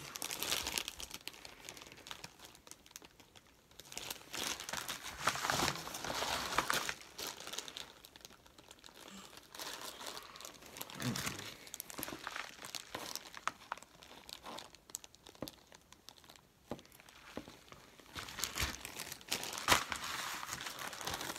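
Clear plastic bags crinkling and rustling as they are handled. The crinkling comes in several spells with quieter gaps between, dotted with light clicks, and a sharp tap near the end.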